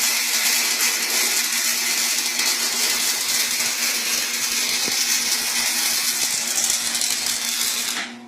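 MIG welding arc from a Miller welder making a steady crackling hiss as a bead is laid. It cuts off suddenly near the end when the torch trigger is released.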